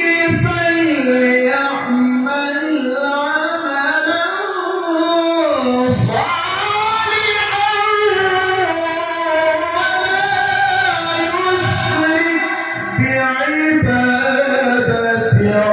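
A male Quran reciter's voice in melodic tilawah, drawing out long ornamented phrases that wind up and down in pitch, with brief breaths between phrases.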